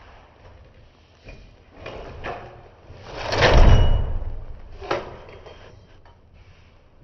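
A glass patio door hung with mini-blinds being opened: a few small clicks and rattles, then a loud rush as the door moves about three seconds in, and a sharp knock near five seconds.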